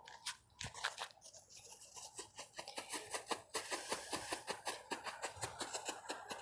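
A firework crackling: a few sharp snaps, then from about two seconds in a rapid, dense run of small pops, several a second.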